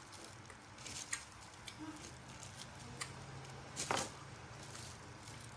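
Quiet mouth sounds of someone chewing juicy watermelon: a few soft wet smacks and clicks, the loudest about four seconds in.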